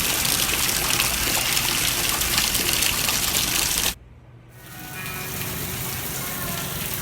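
Water gushing steadily from the Easter Island head statues' water feature, which cuts off suddenly about four seconds in; a quieter background with a few faint steady tones follows.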